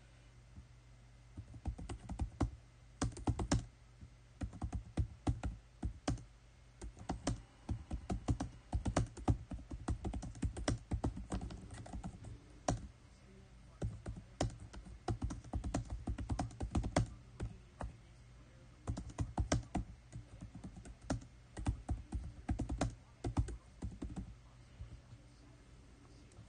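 Typing on a keyboard: runs of quick key clicks with short pauses between them, starting about a second in and stopping a couple of seconds before the end, over a faint low hum.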